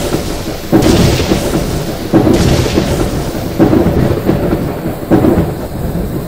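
A series of loud rumbling booms, four of them about a second and a half apart, each starting suddenly and dying away.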